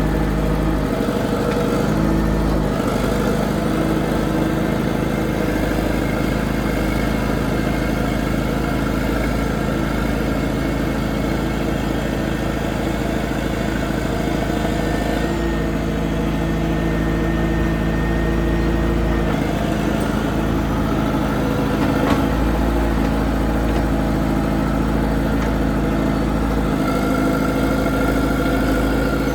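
Engine running steadily, its pitch stepping up or down slightly a few times, with one sharp knock about 22 seconds in.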